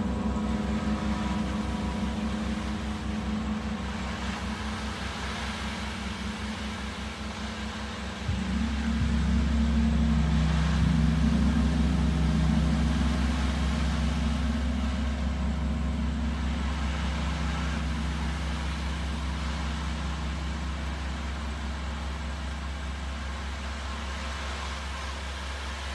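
Large Broder Oetken gong played with a big soft mallet, giving a deep, sustained hum. About eight seconds in, a stronger stroke makes it swell louder, and it then slowly fades.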